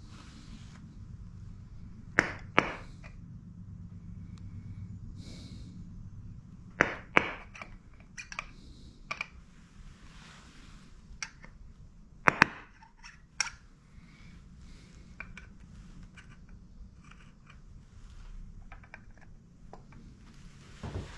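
Sharp metallic clicks and knocks of hand tools and suspension parts being handled during rear suspension work, several of them in quick pairs, over a steady low hum.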